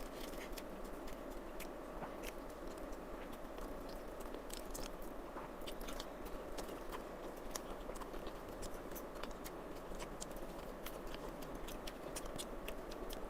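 A person chewing and biting a mouthful of rice and chicken curry, with many small mouth clicks scattered through the chewing.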